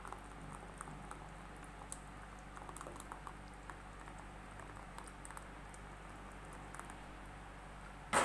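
A thin stream of sugar syrup pouring into hot roasted gram-flour paste in a pan: faint scattered ticks and small pops over a steady low hiss. A sudden loud metal clank comes at the very end.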